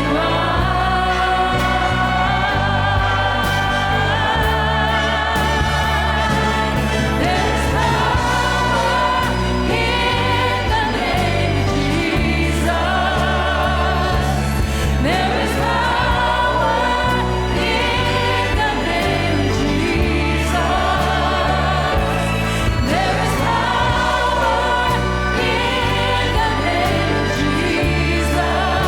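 Worship choir singing with orchestral accompaniment, over sustained bass notes that shift every couple of seconds.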